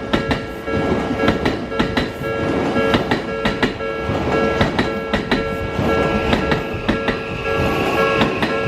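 Odakyu electric train passing over a level crossing, its wheels clicking over the rail joints. The crossing's warning bells ring steadily throughout. A rising motor whine comes in about six seconds in.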